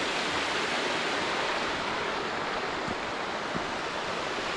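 Waterfall pouring over a rock lip into a gorge: a steady, even rush of falling water.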